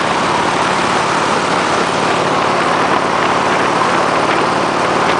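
Loud, steady rush of strong wind on the microphone over a Harley-Davidson V-twin motorcycle engine running at highway speed.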